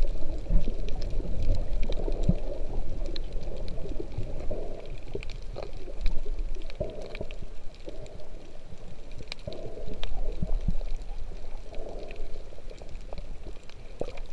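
Muffled underwater sound heard through a submerged camera: a low rumble of moving water that swells every couple of seconds, with scattered sharp clicks.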